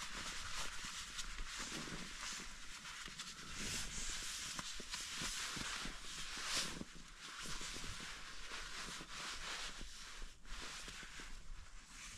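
Rustling and crinkling of nylon as down booties are packed into a small stuff sack by hand, with small knocks from handling and the sack's drawstring being pulled near the end.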